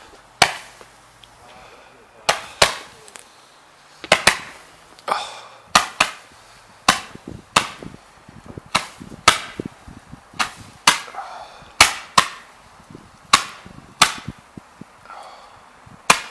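Fireworks going off after being lit: a series of about twenty sharp bangs at uneven intervals, roughly one a second, some coming in quick pairs.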